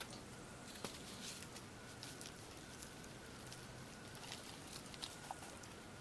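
Faint outdoor background with a few light clicks and taps from hands handling the wooden clothespins and wet cloth draped over the pot.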